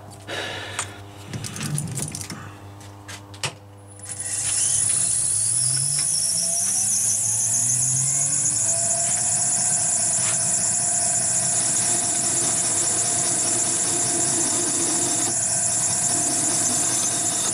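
A few light clicks and knocks, then about four seconds in the electric motor of a metal lathe starts, its whine rising in pitch as it spins up, and runs steadily at speed with a high whine. The lathe is turning a steel axle plate while a hand file is held against its edge to deburr it.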